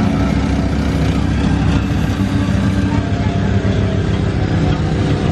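Scion FR-S flat-four engine idling steadily, heard from inside the car.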